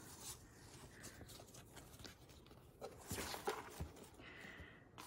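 Faint rustling of a printed paper guide being handled and opened out over a box, with a few soft taps and knocks about three seconds in.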